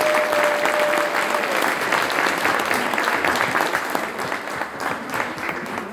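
Audience applauding, dense clapping that dies away over the last couple of seconds. A single steady held tone sounds through the first second and a half.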